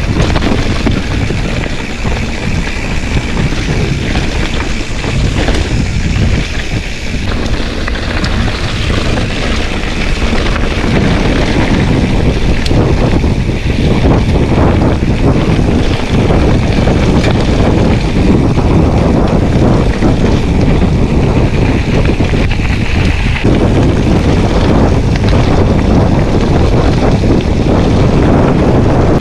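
Mountain bike riding a dirt forest singletrack: a steady rumble of knobby tyres and rattling bike parts under heavy wind noise on the microphone.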